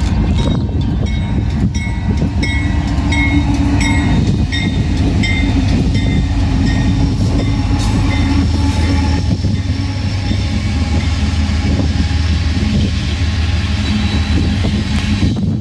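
BNSF freight train passing close by: the lead diesel locomotives' engines run with a steady low drone, then the wheels of empty coal cars roll past. Sharp, regularly spaced dings and clicks sound over the first few seconds.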